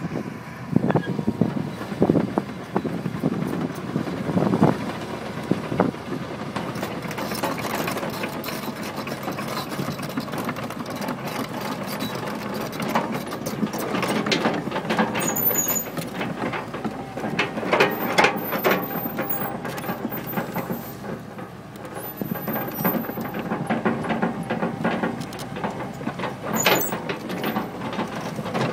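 Komatsu PC350 crawler excavator travelling on its steel tracks: the diesel engine runs under a constant clatter of track links and rollers, with a few short high squeals from the undercarriage in the middle and near the end.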